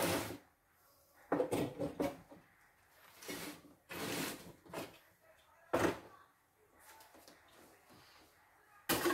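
Tools and objects being handled on a wooden workbench shelf: a series of short knocks and clatters spread irregularly across several seconds, with quieter rummaging between them.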